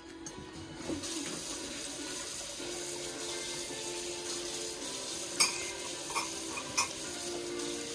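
Kitchen tap turned on about a second in, water running steadily into the sink. Three sharp clinks of dishes in the second half.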